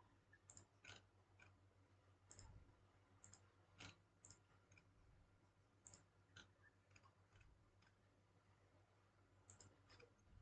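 Faint, irregular clicks of a computer mouse and keyboard, heard over a low steady hum.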